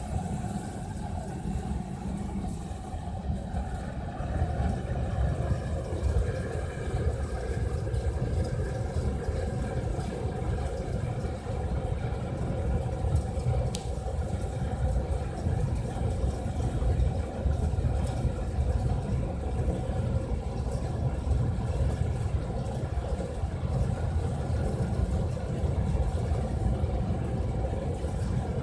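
350 kW industrial wood-pellet burner firing into open air: a steady, heavy low rumble of the flame over the drone of its combustion air fan. A faint higher whine joins about three and a half seconds in.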